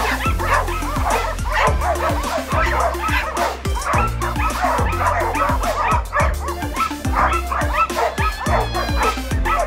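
Background music with a steady beat and bass line, with a pack of dogs barking and yipping over it.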